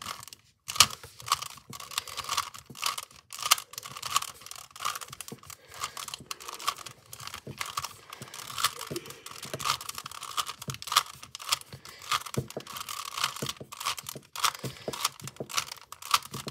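A plastic 3x3 Rubik's cube being turned by hand: a fast, irregular run of clicks and clacks as the layers are twisted.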